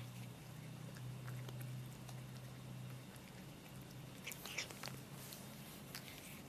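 Cat chewing a dry treat: a few faint crunching clicks, the sharpest coming about four and a half seconds in, over a steady low hum.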